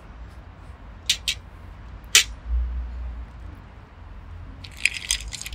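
Glassware and ice clinking at a café table: a few sharp taps of a spoon on glass, then a quick run of clinks near the end as ice rattles in a glass of iced drink being drunk from, over a low steady rumble.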